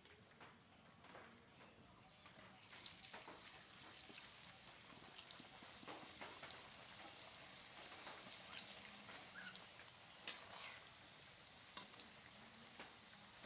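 Potato strips deep-frying in hot oil in an iron karahi: a faint, steady sizzle with many small crackles that thickens about three seconds in. A sharp click comes about ten seconds in.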